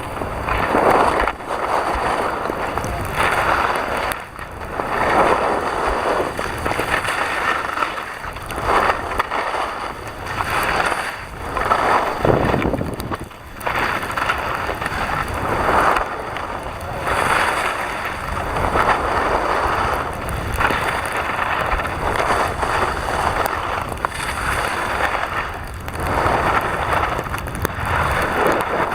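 Wind rushing over the microphone while skiing downhill, mixed with skis hissing over the snow; the noise swells and dips every second or two.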